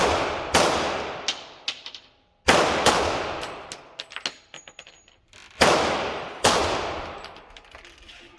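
Semi-automatic pistol shots on a firing range: six shots, roughly in pairs about half a second apart, each with a long echoing tail. Light metallic clinks are heard between the shots.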